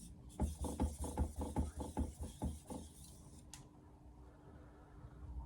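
Victorinox 210 mm knife blade stroked back and forth on a Naniwa Chosera 3000-grit whetstone: quick rhythmic scraping, about four to five strokes a second, raising a burr. The strokes stop a little under three seconds in, followed by a single sharp click.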